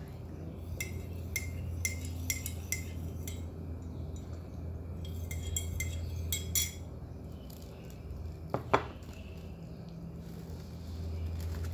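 Metal teaspoon stirring in a ceramic mug, clinking quickly against the sides in two runs. A single louder knock follows a couple of seconds later, over a steady low hum.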